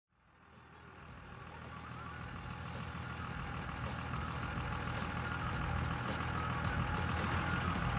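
Pickup truck engine running at low speed as the flatbed truck creeps forward: a steady low drone that fades in over the first couple of seconds.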